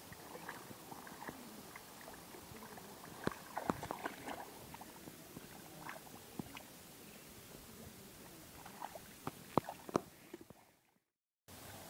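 Hands groping through shallow muddy water, with small wet splashes and squelches that come in clusters over a steady outdoor hiss. The sound fades out to a brief silence near the end.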